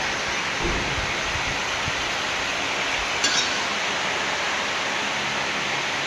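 Steady hissing background noise in a car workshop, with a single short metallic clink about three seconds in.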